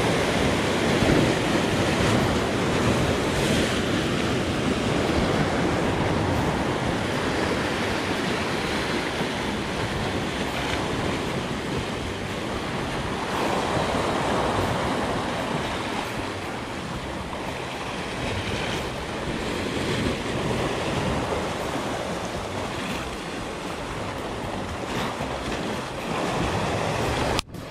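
Sea surf washing and breaking against shoreline rocks in a steady rush that swells and eases. The sound drops out abruptly for a moment near the end.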